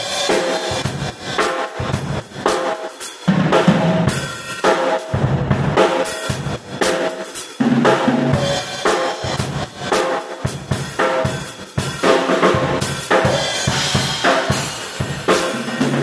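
MW acoustic drum kit played continuously, drums and cymbals struck several times a second. It is a sound check of the kit with freshly fitted and tuned heads on the rack tom and floor tom.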